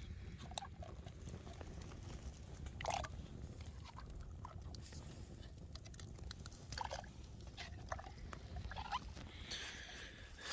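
A knife scraping scales off a fish in short, irregular strokes, with small clicks and scrapes, over a steady low rumble.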